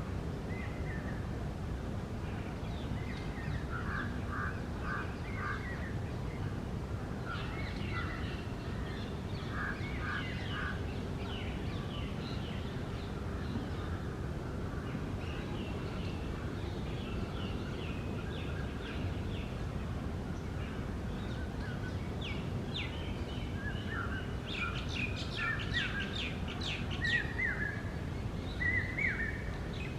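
Rose-ringed parakeets calling: scattered short chirps and screeches, getting busier and louder with harsh shrieks in the last few seconds, over a steady low background rumble.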